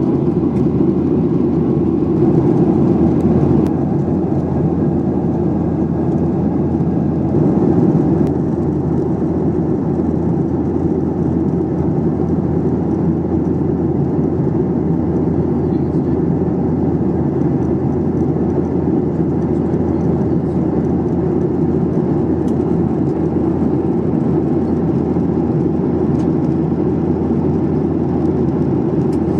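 Airliner passenger-cabin noise in flight: a steady, deep rush of engine and airflow noise, briefly a little louder about two to three seconds in and again around eight seconds.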